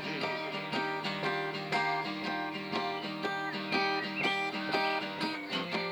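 Acoustic guitar strummed in a steady rhythm, about three strokes a second, playing the instrumental close of a song.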